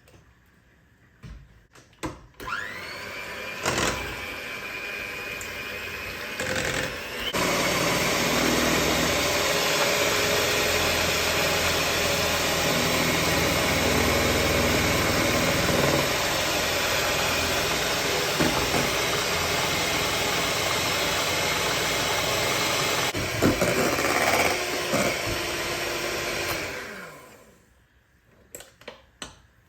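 Electric hand mixer whipping cream: the motor spins up about two seconds in, runs steadily, gets louder a few seconds later and winds down near the end.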